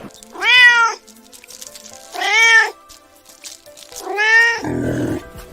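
Domestic cat meowing three times, each meow rising then falling in pitch, followed near the end by a short low rough sound, over background music.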